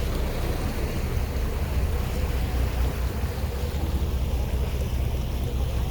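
Steady low rumble of a tour boat underway, its engine and water noise mixed with wind buffeting the microphone.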